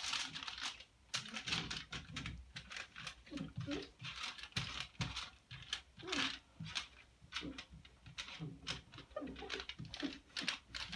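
Aluminium foil crinkling and crackling under the hands as it is pressed and smoothed flat onto a wet wooden board, wrinkles being worked out. An irregular, quick run of crackles and rustles.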